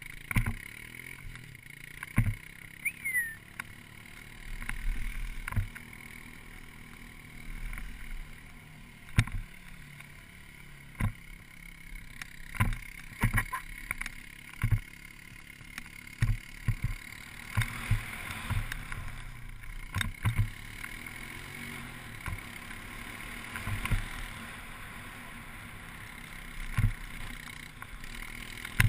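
Skis sliding over rough grass while being towed on a rope, with irregular sharp knocks and thumps every second or two as they jolt over the ground, over a steady low rumble.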